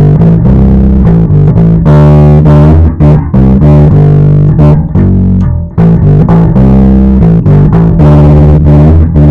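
Schecter Diamond Series 004 electric bass guitar playing a riff of plucked notes, recorded very loud.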